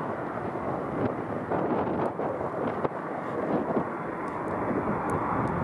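Jet airliner engines running with a steady, dense roar, with wind buffeting the microphone.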